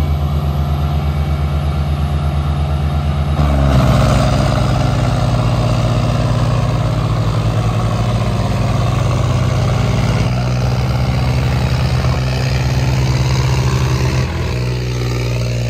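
Diesel tractor engines running hard at full throttle under heavy pulling load in a tractor tug-of-war, with a steady deep pulsing drone. The revs and loudness climb about four seconds in and stay high, easing slightly near the end.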